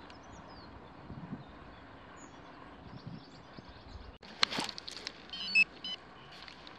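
Faint open-air ambience, then a short scrape about four and a half seconds in. It is followed by a quick cluster of short high electronic beeps from a metal detector signalling a target.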